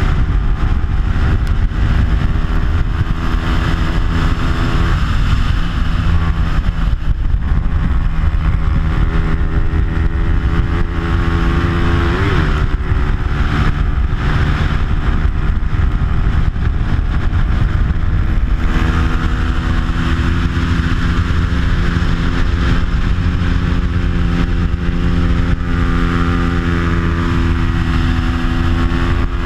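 Bajaj Pulsar 200's stock single-cylinder four-stroke engine running hard at racing speed through an aftermarket exhaust, its pitch dropping and climbing again a few times as it shifts gears. Wind rushes over the microphone throughout.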